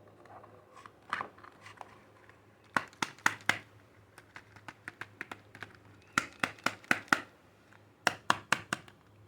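Soap packaging being unwrapped by hand, crinkling and crackling in several quick bursts of sharp crackles.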